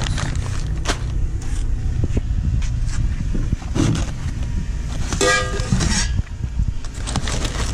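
Crinkling of packing paper and plastic bags, with light knocks, as stainless steel exhaust headers are handled and lifted out of a cardboard box, over a steady low rumble. A brief pitched sound about five seconds in.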